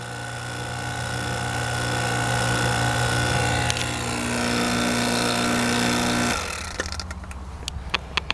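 Vacuum pump running steadily, isolated behind the closed valve while the evacuated system holds its vacuum, then switched off about six seconds in. A few sharp clicks follow near the end.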